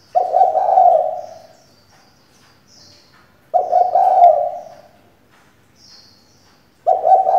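Female spotted dove cooing: three evenly spaced coo phrases, each about a second and a half long. Faint high chirps of small birds come between them.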